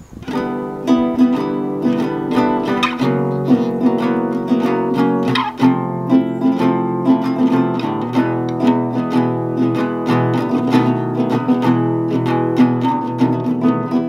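Instrumental music: a quick plucked guitar tune that starts suddenly and carries on steadily.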